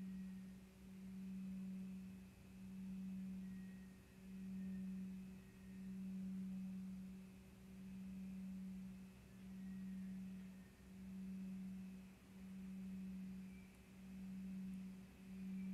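A steady low, pure humming tone that swells and fades in even pulses about every second and a half, with faint higher overtones: a meditation tone held under the resting pose.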